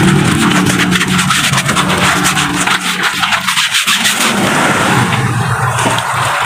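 Soapy water sloshing and splashing as a hand scrubs out a tire-testing water tub, with many quick rubbing strokes.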